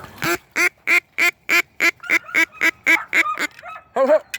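A rapid series of about a dozen short, evenly spaced duck quacks, roughly three a second, ending with one longer, lower quack near the end.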